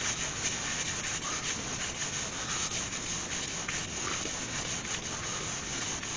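Paper towel rubbing against the side of a spalted beech bowl spinning on a lathe, wiping on sanding sealer: a steady rubbing hiss of the towel on the wood.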